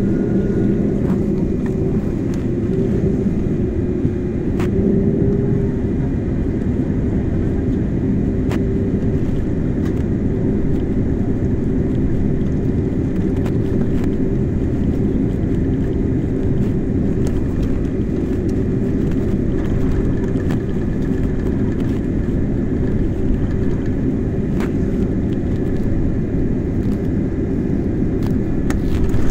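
Jet airliner cabin noise during taxi: a steady low rumble from the engines at idle and the rolling aircraft, with a few faint steady tones and occasional light clicks and rattles.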